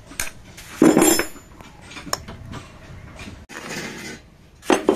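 Metal-on-metal clanks and clinks from hand tools and engine parts being handled. There is a loud clank with a brief ring about a second in, a few lighter clicks, and another loud clank near the end.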